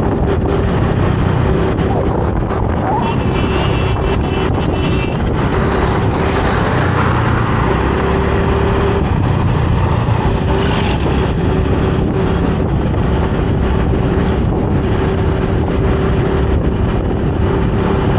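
Motorcycle on the move, its engine running steadily under wind rushing over a helmet-mounted microphone.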